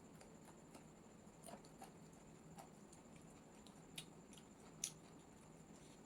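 Faint chewing and wet mouth clicks of a person eating chowmein noodles, with two sharper smacks about four and five seconds in.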